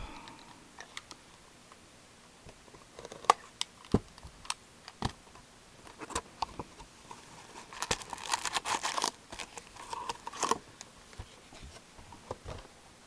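Packs of trading cards being taken out of their box and stacked by hand: scattered light taps and clicks, with a burst of wrapper crinkling about eight seconds in and a shorter one a little later.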